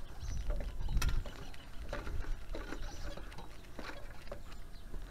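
Boots stepping down the aluminium rungs of a wooden ladder: scattered knocks and light metal clinks about once a second, over a low rumble.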